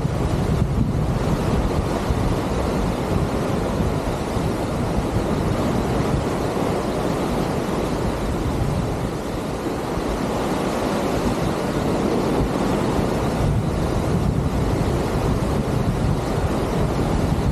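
Rough open sea rushing and breaking in white water along a cruise ship's hull as the ship pushes through the waves, with wind buffeting the microphone. A loud, steady wash of water noise.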